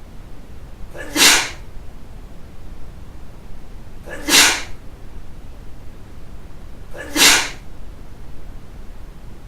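Three short sneezes, evenly spaced about three seconds apart.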